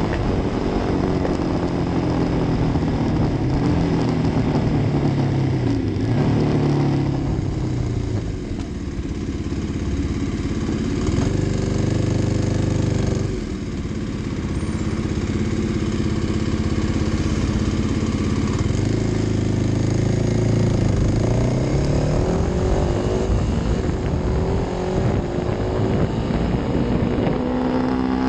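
Kawasaki D-Tracker's single-cylinder four-stroke engine under way, heard from on the bike: the engine note falls as the bike slows over the first few seconds, holds steady in the middle, then rises as it accelerates about two-thirds of the way in and again near the end, over steady wind and road rush.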